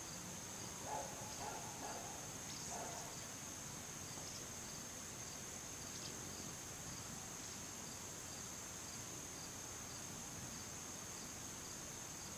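Faint, steady high-pitched chirring of insects, with a few brief faint calls in the first three seconds.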